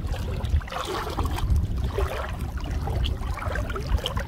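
Water sloshing and swirling irregularly around bodies wading through waist-to-chest-deep water, with a low, uneven rumble underneath.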